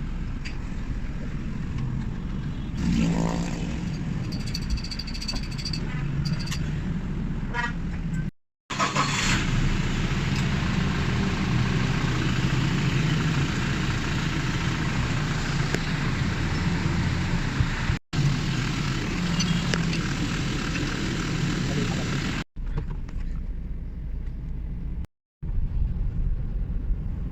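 Toyota Fortuner running, with a steady engine and road drone, heard in several stretches broken by brief silences.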